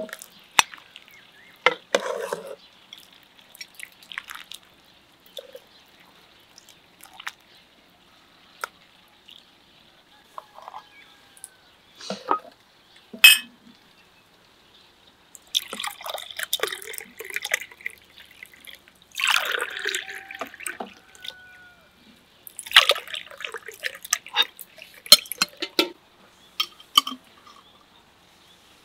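Fruit drink poured from a glass jar into small drinking glasses: three pours in a row, each a couple of seconds of splashing. Scattered clinks of glass, ladle and dishes come before and between the pours.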